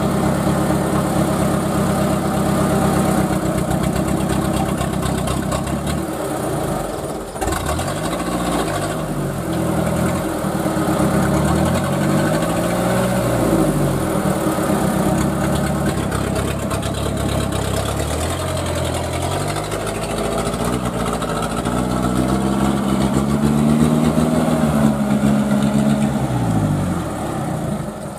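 A small 4x4 dump truck's engine running steadily, then revving up and down over and over, its pitch rising and falling several times as the truck pulls away along a muddy track.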